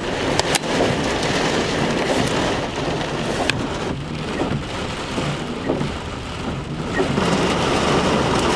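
Heavy thunderstorm rain falling steadily, with a few sharp ticks in the downpour.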